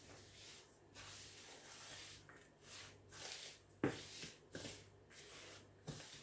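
Hand mixing a flour dough in a plastic bowl: faint, repeated rustling and squishing as the fingers work the flour. There is a sharper knock about four seconds in and another near the end, over a low steady hum.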